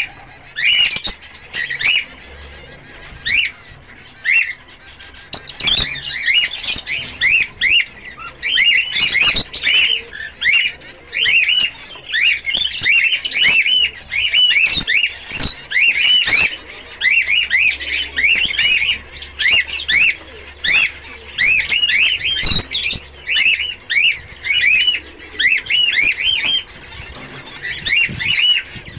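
Zebra finches calling: short high calls repeated two or three times a second, often in quick pairs.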